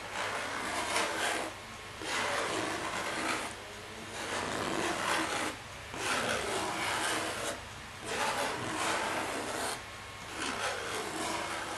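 Thin plastic crinkled and rubbed between fingertips, in six rustling passes of about a second and a half each with short pauses between.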